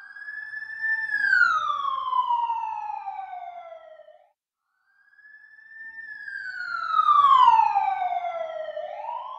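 Emergency-vehicle siren wailing in two sweeps. Each sweep holds a high tone, then slides steeply down in pitch. There is a short break about halfway through, and the tone starts to rise again near the end.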